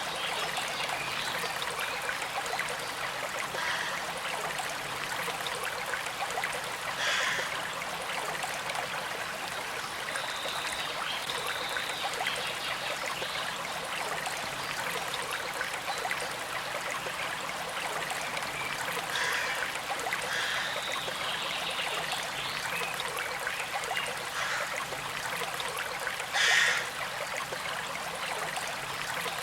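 Small creek flowing steadily over stones, a continuous trickling with a few brief louder splashes, the strongest near the end.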